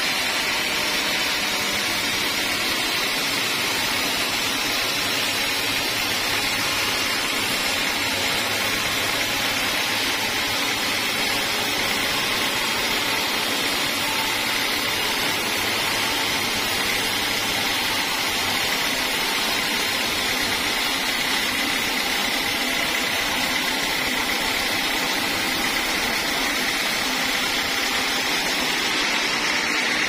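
Sawmill band saw running steadily and sawing through a teak log, a constant machine noise with a high whine.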